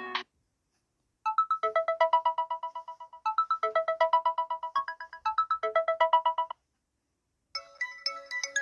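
Samsung Galaxy A30 ringtones playing. A melody of rapid short notes, its phrase repeating about every two seconds, starts about a second in and stops about six and a half seconds in. After a second of silence a different ringtone begins near the end.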